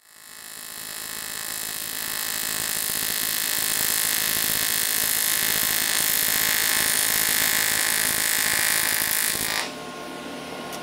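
AC TIG welding arc on aluminum: a steady buzzing hiss that grows louder over the first few seconds. The arc cuts out about nine and a half seconds in, leaving a quieter low hum.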